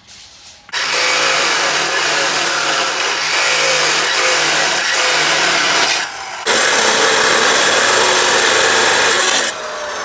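TOTAL abrasive cut-off saw grinding through steel reinforcing bar: a loud, harsh cutting noise that starts about a second in, breaks off briefly around six seconds, and runs again until near the end.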